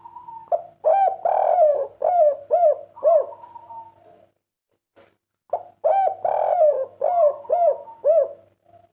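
Spotted dove (tekukur, derkuku) of the 'kuk 3' song type cooing: two song phrases, each opening with a soft gliding note and going into a quick run of about six rounded coos, with a short pause between the phrases.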